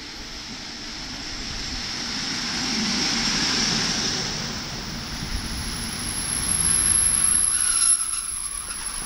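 NS Mat '64 electric multiple unit running in, its motor whine and wheel rumble growing louder over the first few seconds and then holding steady.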